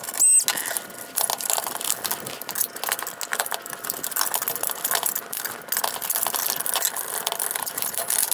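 Plastic clips and trim of a car's LED headlight assembly being released and handled: an irregular run of small clicks, taps and rattles, with a brief high squeak at the very start.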